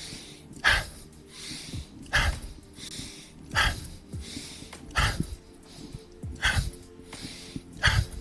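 Paced breathing in time with shoulder shrugs: a soft drawn-in breath, then a short, sharp exhale about every one and a half seconds, six exhales in all, over soft background music.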